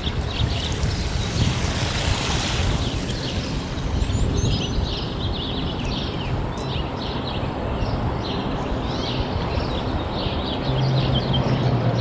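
Many small birds chirping over a steady low rumble, with a brief rush of noise about two seconds in. A low hum joins near the end.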